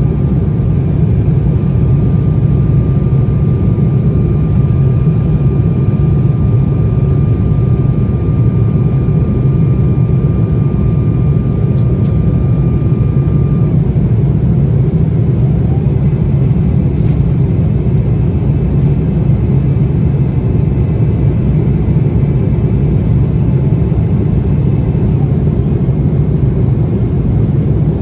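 Loud, steady cabin noise of an Embraer E190 airliner climbing after takeoff: a deep rumble of its GE CF34 turbofan engines and the airflow. A faint whine in the background stops about halfway through and is replaced by a slightly higher one.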